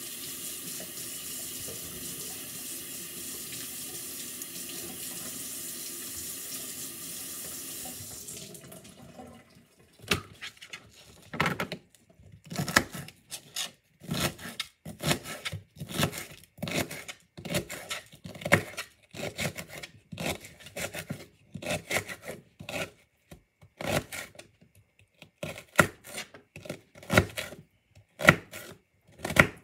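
Kitchen tap running as celery is rinsed under it, shutting off about eight seconds in. Then a knife chops celery on a cutting board in irregular strokes, about one or two a second, with a short pause partway.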